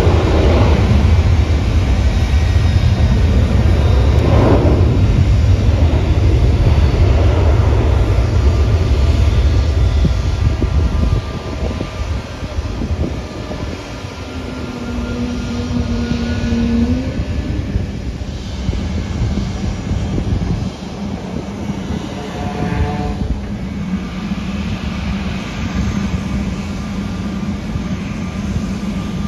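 Jet airliner engines rumbling across the airfield, a loud deep rumble for about the first ten seconds that then drops to a quieter, steady hum.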